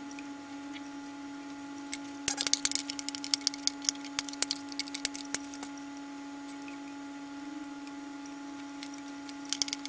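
Snips cutting the excess component leads off the back of a freshly soldered PCB: a quick run of sharp clicks starting about two seconds in, then a few more near the end, over a steady low electrical hum.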